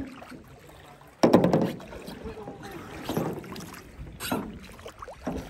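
Water sloshing around a clear plastic kayak as a person climbs in and sits down, with a sudden loud noise about a second in and indistinct voices.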